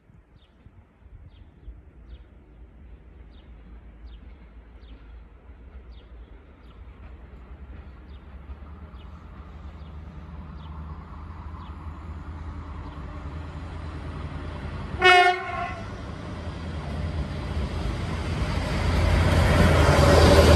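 Rail work train (a Baneservice track machine) approaching: its rumble grows steadily louder, it sounds one short horn blast about three quarters of the way in, and it is loud as it draws alongside near the end.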